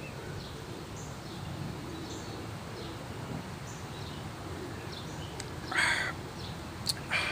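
Birds calling outdoors: small birds give short, high chirps again and again over a steady low background noise, and near the end two louder, harsh calls sound about a second and a half apart.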